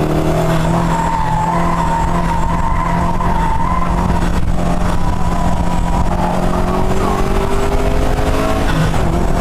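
Subaru WRX STi's turbocharged flat-four engine running hard on a track lap, with the tyres squealing in a wavering tone through a corner for the first few seconds. The engine note then climbs steadily as the car accelerates out of the corner.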